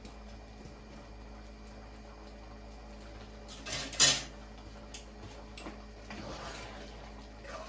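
Metal cooking pots and utensils handled on a gas stove: one loud clank about four seconds in, then a few lighter knocks and a soft scrape.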